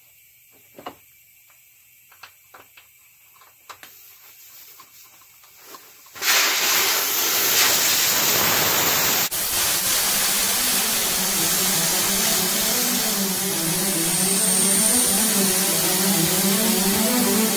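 A few light clicks, then about six seconds in a sudden loud, steady hiss of air rushing out of a car tire through its valve stem as the tire is deflated.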